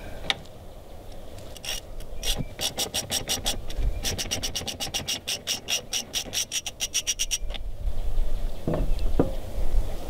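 Hand ratchet with a 3/4-inch socket clicking rapidly, several even clicks a second for about five seconds, as it spins off the nut on a SeaStar steering cylinder's support-rod bracket. Near the end come two soft knocks.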